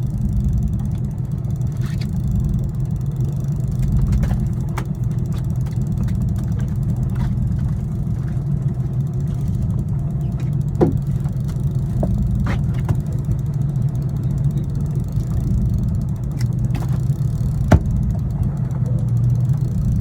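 Charter fishing boat's engine running steadily with a low drone, with a couple of sharp clicks or knocks about 11 and 18 seconds in.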